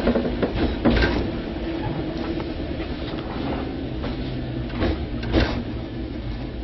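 Inside a Tobu 5050 series electric train car with nose-suspended traction motors: a steady rumble with a few sharp clanks, one about a second in and two close together near five seconds, and a low hum from about four seconds.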